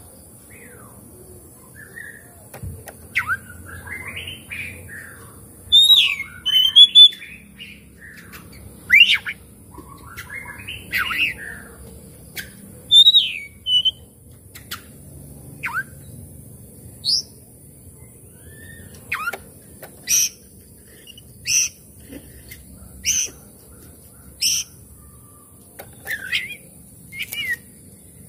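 Oriental magpie-robin singing: varied whistled phrases and glides, then a run of short, sharp repeated notes about every second and a half in the second half.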